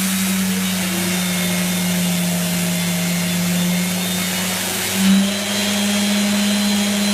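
Festool RTS 400 orbital sander running against filled plaster on a wall, together with the suction of the Festool CTL MIDI dust extractor drawing the dust through the sander. The steady motor hum rises briefly about five seconds in.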